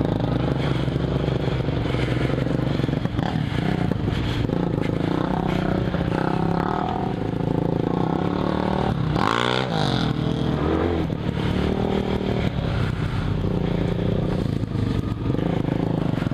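Suzuki Bandit 1200's inline-four engine running along a rough dirt trail, with knocks and rattles from the bumpy ground. The revs swing up and down briefly about nine seconds in.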